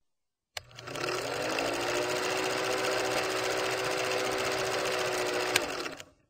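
Film projector running: a steady mechanical clatter over a motor hum that rises briefly as it starts up, with a sharp click near the end, then it stops abruptly.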